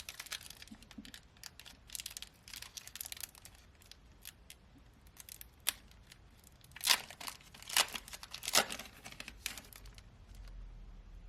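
A foil trading-card booster pack being torn open and its wrapper crinkled: a string of crackling rips, the loudest about seven to nine seconds in.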